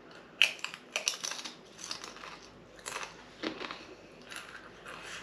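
A crisp chip bitten and chewed, with sharp, uneven crunches; the loudest comes about half a second in.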